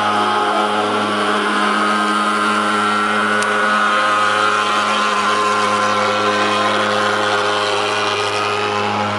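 Thermal fogging machine running while spraying insecticide fog, its engine giving a loud, steady drone that holds one pitch throughout.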